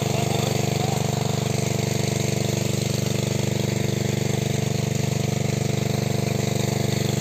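A small engine running steadily at an even speed, its low hum unchanging throughout.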